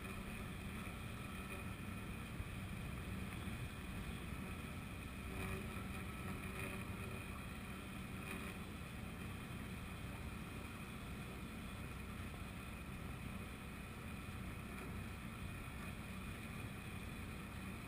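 Small sailboat under way, with steady water and wind noise and a low, even hum beneath it.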